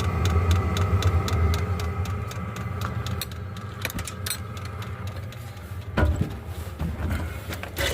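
Diesel air heater running without an exhaust muffler: a steady low drone, with the fuel dosing pump ticking about four times a second. The ticking fades after the middle, and a couple of louder knocks come near the end.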